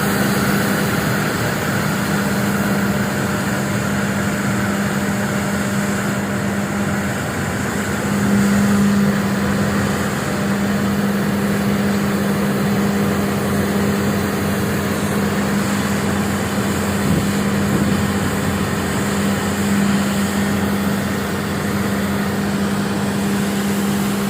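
Road sweeper truck's engine and suction fan running steadily: a constant drone with a low hum while it vacuums leaves off the road.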